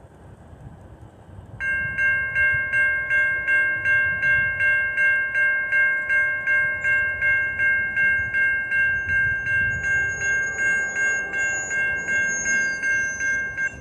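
A Safetran type 3 electronic crossing bell rings at about three strokes a second, starting suddenly about a second and a half in and cutting off near the end. It sounds the crossing's warning that a train is approaching while the flashers light and the gates lower.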